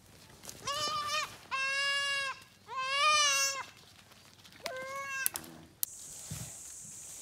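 A goat bleating four times, loud drawn-out cries of under a second each, the third wavering up and down in pitch. A few clicks follow, then a steady high hiss takes over for the last second or so.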